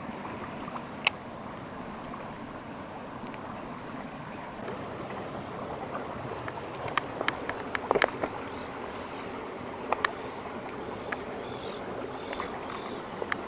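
Steady rush of a shallow creek running over a riffle, with scattered light clicks and knocks: one about a second in, a small cluster around eight seconds, and a pair near ten seconds.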